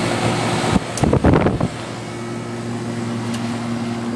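A 2003 Goodman 3.5-ton packaged air-conditioning unit running: a steady hum from its Bristol reciprocating compressor and condenser fan, with a fan's airy rush over it. A short burst of rumbling noise and a click about a second in.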